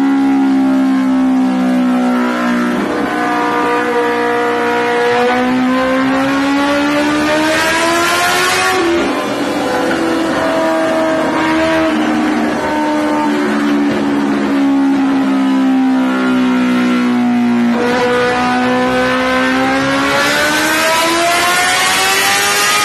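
Kawasaki Ninja H2R's supercharged 998 cc inline-four running on a roller dyno, the rear wheel driving the drum. The revs climb steadily for several seconds, fall away suddenly and sink slowly, then climb again near the end.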